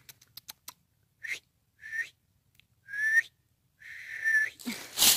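A person whistling to call pets: four short whistled notes, the third rising slightly and the last held longest. Near the end, a loud rustle of dry leaves.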